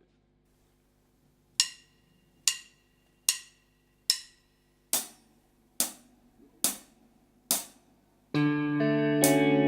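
Eight sharp clicks evenly spaced a little under a second apart, counting the song in; near the end the band comes in, guitar to the fore.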